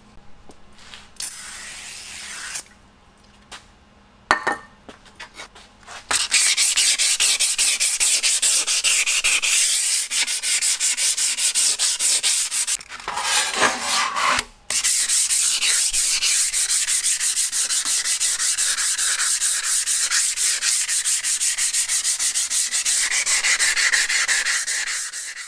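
An abrasive scouring pad is scrubbed rapidly back and forth along a steel hand-saw blade, making a loud, fast rasping rub that scours off rust loosened by a vinegar soak. A few quieter handling noises come first, and the scrubbing starts about six seconds in, pausing briefly just before the middle.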